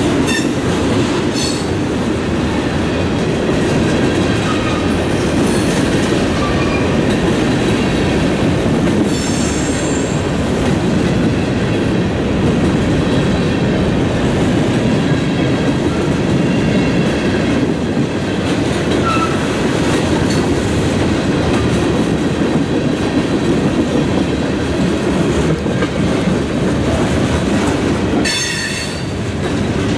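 Freight cars of a passing train rolling by close at hand: a steady rumble and clatter of steel wheels over the rail joints. Brief high-pitched wheel squeals come now and then, the clearest about ten seconds in and again near the end.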